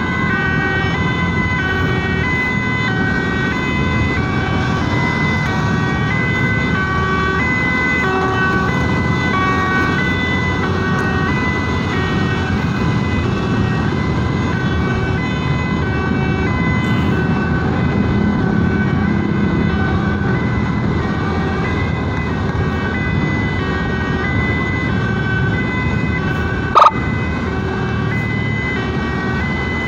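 Two-tone emergency siren switching between a high and a low note about every half second, over steady engine and road noise from moving traffic. A single sharp knock cuts in near the end.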